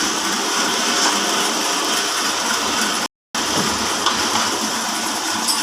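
Horizontal band sawmill driven by a 5 HP electric motor, running with a steady whirring noise as it saws timber. The sound breaks off to silence for a moment about three seconds in.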